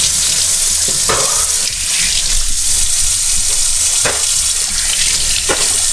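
Kitchen faucet running, its stream pouring into a stainless steel sink in a steady hiss, with three short louder sounds over it: about a second in, about four seconds in, and near the end.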